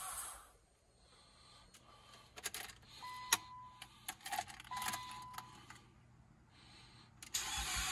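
Starter cranking on a 2004 Nissan Sentra SE-R Spec V cuts off about half a second in. Scattered clicks and two short electronic chime beeps follow, then loud cranking resumes near the end. The engine turns over without catching on its first start after a turbo install, which the owner puts down to air in the fuel line.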